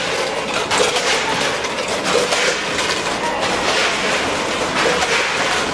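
Multihead weigher running with pieces of fried bean curd clattering across its vibrating feed pans and dropping through the hoppers: a steady, dense rattle of many small clicks.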